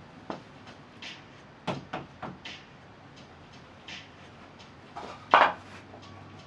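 Scattered knocks and clunks of tools and parts being handled while a motorcycle's front forks are taken off, with a louder, longer clunk about five seconds in.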